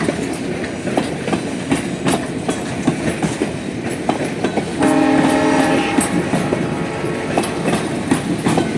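White Pass & Yukon Route train running, its wheels clicking steadily over the rail joints. The horn sounds once, for about a second, about five seconds in.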